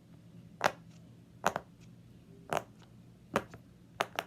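Bubbles on the loud side of a silicone pop-it fidget toy being pressed one by one: six sharp pops, about one a second, coming quicker near the end.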